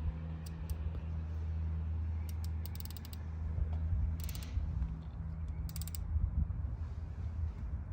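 Hand ratchet wrench clicking in a few short runs of pawl clicks, tightening a plug by feel rather than to a torque reading.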